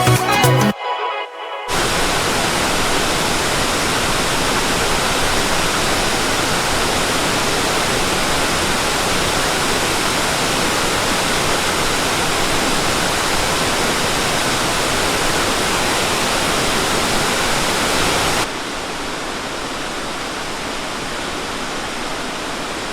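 Background music ends just after the start. Then comes the steady rush of a waterfall. About three-quarters of the way through it drops to a quieter rush with less low end.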